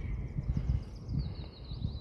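Wind buffeting the microphone in low gusts, with a bird trilling a rapid run of high chirps from about half a second in.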